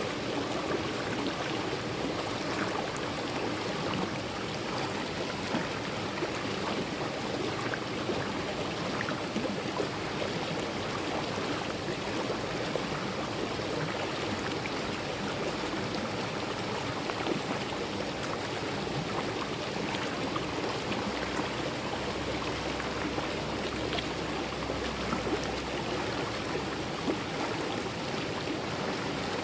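Mountain-valley stream flowing over rocks: a steady rush of water with small irregular splashes and gurgles.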